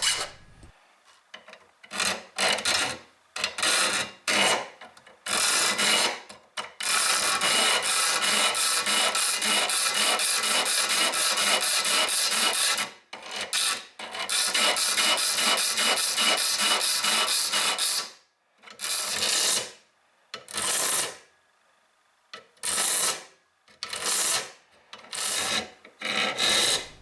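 A round file rasping a curved profile into the edge of a steel card scraper to make a scratch stock, in quick strokes. Separate strokes in the first few seconds and the last third, with long stretches of rapid back-and-forth filing in between.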